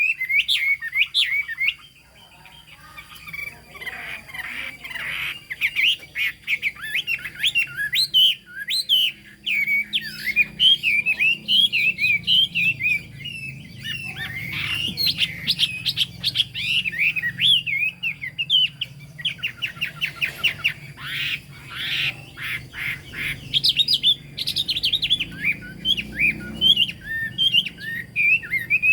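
Chinese hwamei singing a long, varied run of rapid whistled notes and phrases, with a brief lull about two seconds in.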